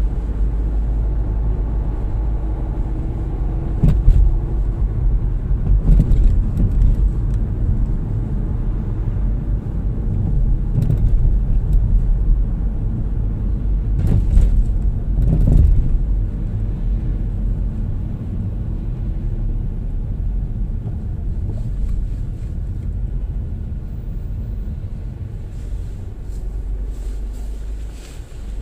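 A car driving in town traffic: a steady low rumble of engine and tyre noise, with a few short knocks from bumps in the road. The rumble eases off near the end as the car slows in a queue.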